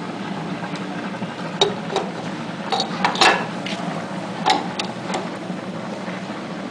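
Light metallic clinks and knocks as a mesh filter screen is pressed into a stainless-steel wet grinder's bowl by hand: about eight sharp clinks, the loudest a little past three seconds in, over a steady low hum.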